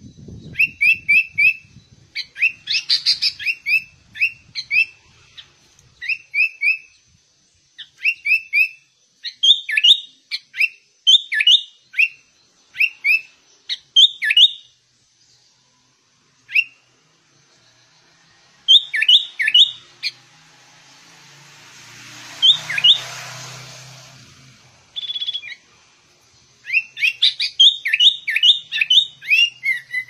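Caged sooty-headed bulbul singing: repeated short phrases of quick, sharp chirping notes, a phrase every second or two, with a pause about halfway. A few seconds after the pause, a rush of hiss swells up and fades away under the song.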